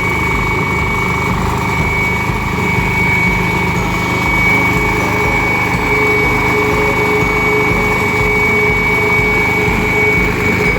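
Engine running steadily under a low pulsing rumble, with a constant high whine over it. A second, lower steady tone joins about halfway through.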